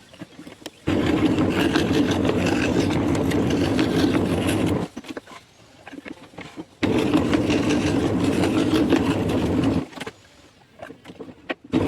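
Scroll saw running and cutting wood, a steady mechanical sound. It stops twice for about two seconds, with only faint clicks and knocks in the gaps, and starts again abruptly each time.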